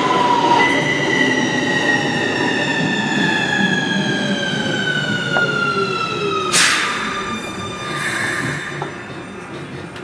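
Keikyu New 1000 series train's Siemens IGBT VVVF inverter whining, its stacked tones falling steadily in pitch as the train slows. About six and a half seconds in comes a sudden short burst of noise, and after it the whine fades out.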